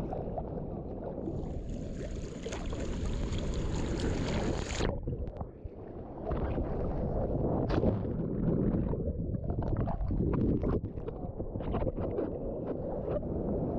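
Rushing wind and water noise on the microphone, heaviest in the low range, changing abruptly about five seconds in and again at six, with short knocks in the later part.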